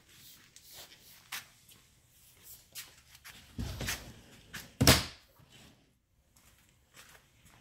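Panels of a portable tabletop interpretation booth being handled and fitted together: light knocks and rustling, then one loud clack about five seconds in as a panel meets the frame.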